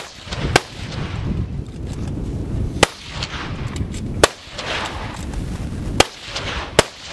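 Military centrefire rifles firing in rapid-fire competition: six sharp cracks at irregular intervals, each trailing off in a rolling echo.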